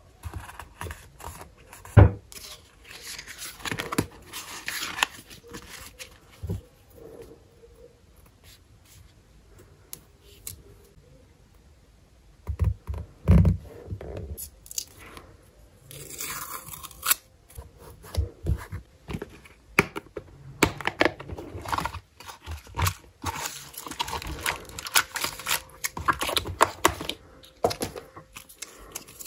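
Close-up journaling sounds: metal tweezers tapping and scraping on a paper journal page as small stickers are peeled and pressed down, with irregular taps, rustles and a longer peeling hiss about midway. Near the end a plastic sheet of rhinestone stickers is handled.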